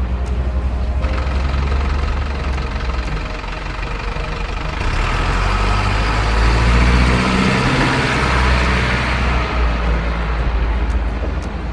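Steady truck engine sound running from an RC truck wading through a muddy stream. A rushing, splashing noise swells about five seconds in and eases off near nine seconds.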